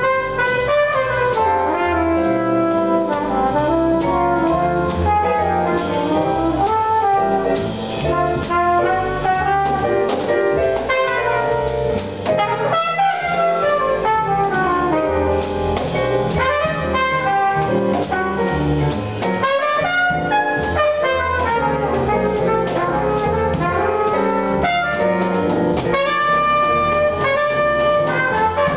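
A live jazz quartet playing: trumpet carrying the melody over upright bass, drum kit with cymbals, and keyboards.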